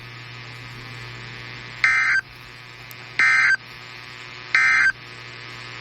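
NOAA Weather Radio EAS/SAME end-of-message data bursts: three short, shrill digital warbles about 1.3 seconds apart, marking the end of the flash flood warning broadcast. Between them runs a steady radio hiss with a low hum.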